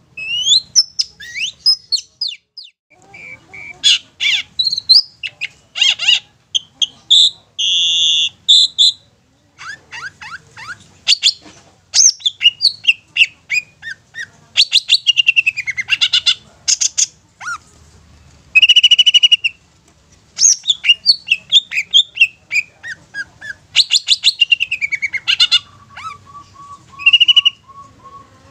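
Long-tailed shrike (cendet) singing a varied, fast song of chirps, trills, sliding whistles and rapid clicking notes, broken by short pauses. Near the end it gives a short run of evenly spaced lower notes.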